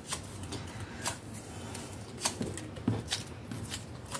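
Light rustling of thin card paper with a handful of sharp little clicks, as small die-cut paper flower pieces are handled and pressed into shape with a shaping tool.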